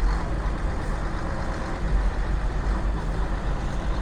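A large truck's engine running steadily, a low, even rumble with no distinct changes.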